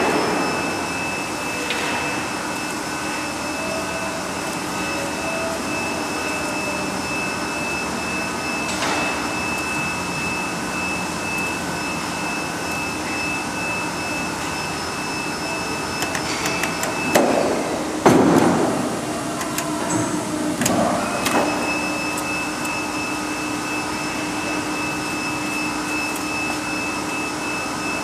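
Guillotine paper cutting machine running with a steady hum and a thin high whine. About two-thirds of the way in come a few louder mechanical sweeps and knocks from the machine, and the whine stops for a few seconds before it returns.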